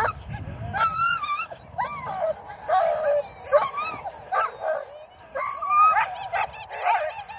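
A team of harnessed sled dogs whining and yipping over one another in many overlapping rising-and-falling cries, the excited noise of dogs eager to run.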